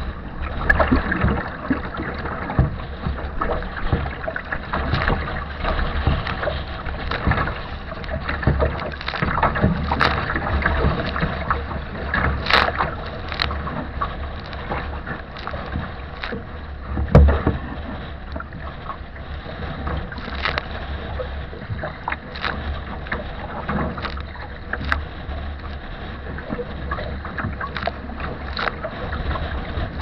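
Strong wind rumbling on the microphone while choppy waves slap and splash against the bow and deck of a wooden sea kayak, with sharp splashes throughout and one heavier hit a little past the middle.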